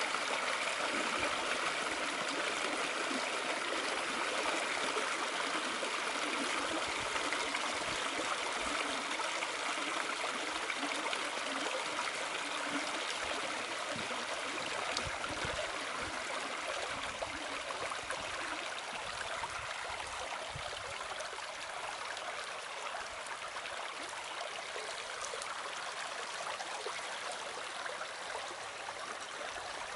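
A small rain-swollen creek rushing over stone ledges and gravel: a steady rush of water, as the creek fills with runoff.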